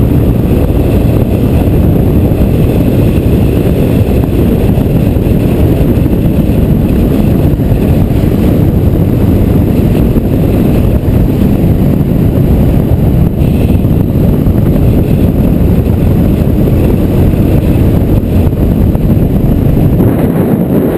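Motorcycle riding at road speed: a loud, steady low rumble of wind buffeting the bike-mounted camera's microphone, with the motorcycle's engine running beneath it.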